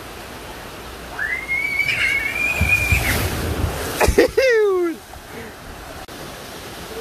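Water rushing down a waterslide, with a rider splashing into the run-out lane. A long high-pitched tone rises and holds for nearly two seconds before the splash, and a loud cry sliding down in pitch comes as the rider lands.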